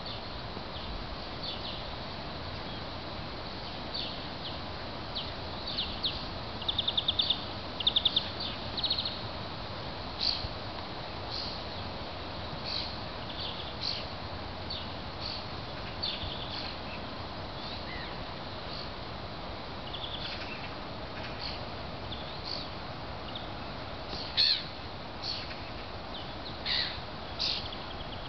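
Birds calling outdoors: short, high chirps and calls scattered throughout, with a loud run of rapid repeated notes about seven seconds in, over a steady hiss of background noise.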